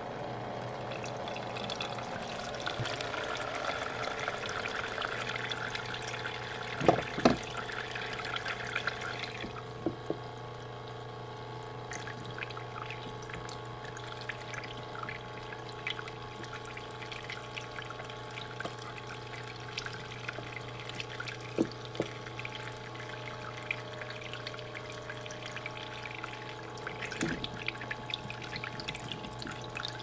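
Toy play sink's small electric pump humming steadily while water trickles from the faucet into the basin, with a hand swishing grapes in the water. A few sharp splashes or knocks, the loudest about seven seconds in.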